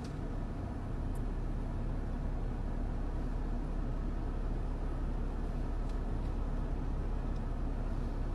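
Steady road-traffic rumble from cars on a busy road, rising a little about a second in.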